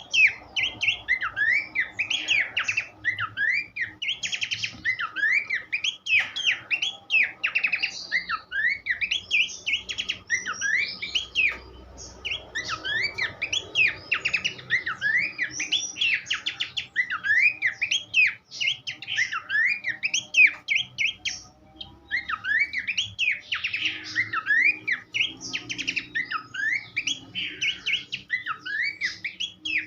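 Pelanduk semak babbler singing a fast, continuous string of sweeping whistled notes, several a second, with a few short pauses.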